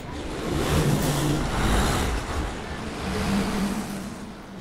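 A motor vehicle's engine running and passing by, swelling louder about a second in and again near the three-second mark.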